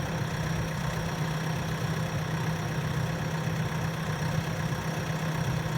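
JCB 3DX backhoe loader's diesel engine running steadily, with a constant low drone and no revving.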